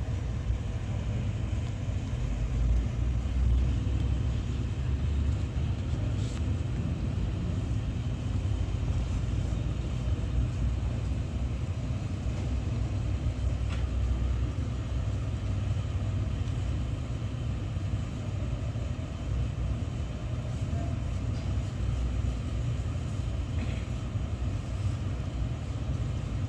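A steady low rumble, with a few faint short clicks about six, fourteen and twenty-four seconds in.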